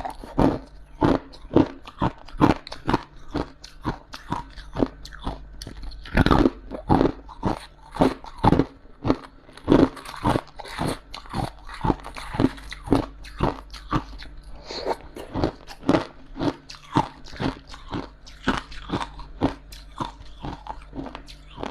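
Close-up chewing of frost from a humidifier: a continuous run of crisp, crunchy bites, about two a second.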